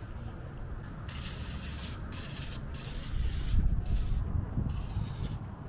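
Spray can hissing in about five short bursts, starting about a second in and continuing to the end, over low rumbling handling noise.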